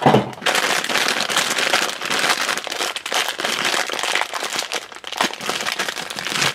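Shiny black plastic blind bag crinkling and crackling steadily as hands crumple it and pull it open to get the vinyl mini figure out.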